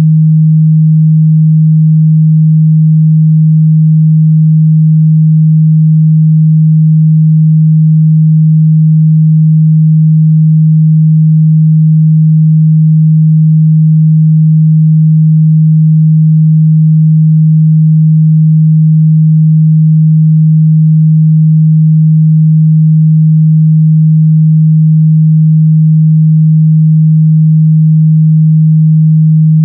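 Steady, loud 157 Hz sine-wave test tone, a single pure low hum held at constant pitch and level.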